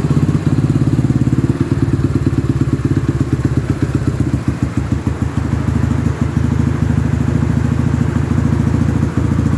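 Yamaha XTZ 125's single-cylinder four-stroke engine idling steadily through an aftermarket exhaust pipe, with a rapid, even exhaust pulse and a slightly deeper tone.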